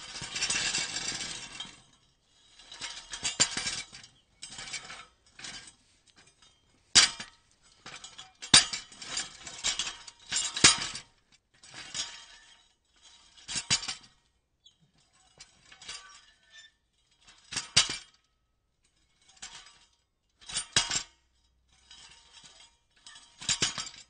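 Pieces of metal being shuffled and jostled against each other, clinking and rattling in irregular bursts of a second or two with short pauses between, a few sharp clinks standing out.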